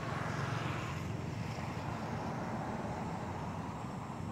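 Steady low outdoor rumble with a hiss, no distinct events.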